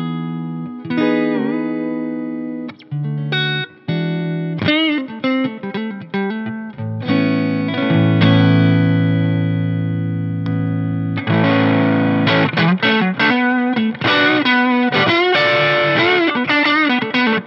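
1978 Tokai Springy Sound ST-42 electric guitar, a three-single-coil Strat-style guitar, played through a driven Fender Deluxe Reverb valve amp. It plays bent and wavering single notes, then a chord held for about four seconds. About eleven seconds in, the playing turns into a brighter, denser run of notes.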